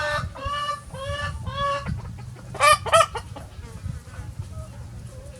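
Chickens calling: a rooster's drawn-out crow ends just after the start and is followed by three shorter pitched notes, then two loud, sharp squawks come close together about three seconds in.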